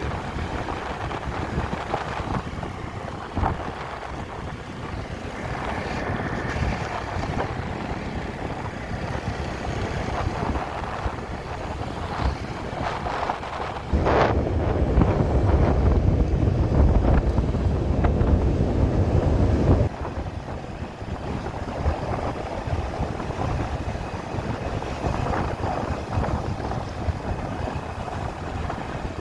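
Street traffic and wind rushing over a phone microphone from a moving scooter. About halfway through, a much louder low wind rumble sets in for some six seconds, then cuts off abruptly.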